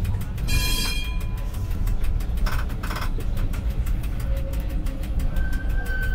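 Tram in motion heard from inside its cab: a steady low running rumble over the rails. A brief high-pitched squeal comes about half a second in, and a steady whine sets in near the end.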